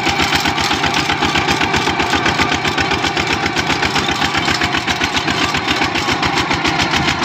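Kubota RT-series single-cylinder diesel on a two-wheel walking tractor running steadily as it drives along, with a rapid, even firing beat heard close up.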